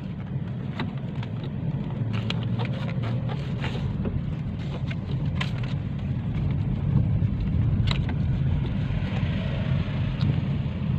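Steady low road and engine rumble heard from inside a moving car's cabin, with scattered faint ticks.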